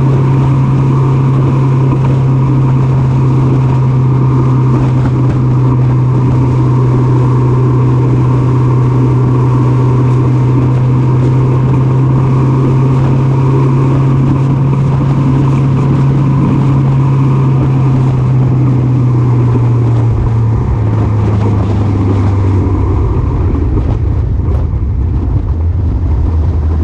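Motorcycle engine running at a steady cruise with wind rush over the microphone; about twenty seconds in the engine note drops lower as the bike slows down.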